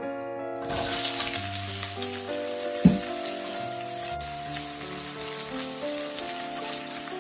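Chopped onion sizzling in hot oil in a nonstick wok, the sizzle starting suddenly under a second in as the onion goes in. There is a single knock about three seconds in, and background music plays throughout.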